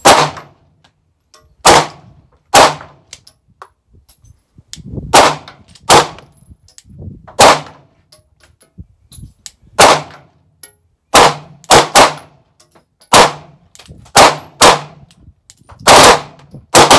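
Pistol gunfire from a 9mm Glock 43X and a second shooter alongside: about fifteen sharp shots at uneven intervals, some in quick pairs, each ringing briefly under a corrugated metal roof.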